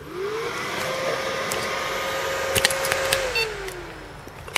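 Dell Vostro 200 desktop PC's cooling fan spinning up at switch-on: the whir rises quickly in pitch, holds steady for about three seconds, then winds back down as the machine boots. A few light clicks come near the end of the steady part.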